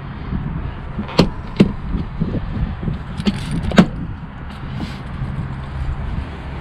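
A few sharp clicks and knocks over a steady low hum, the loudest about a second in and again near four seconds in.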